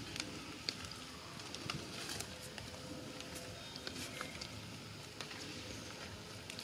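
Steady outdoor background noise with scattered sharp clicks and a few brief, faint high chirps.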